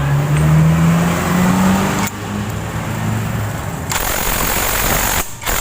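Honda Vario 125 rear wheel and CVT driven pulley spinning, with a low hum and a rough grinding rasp ('kemerosok'). The noise comes from a worn, dry rear-pulley bearing. The sound shifts about two seconds in and turns harsher and hissier near the end.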